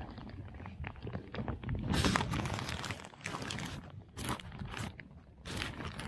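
Crinkly crackling rustle close to the microphone in several irregular bursts, the densest about two to four seconds in.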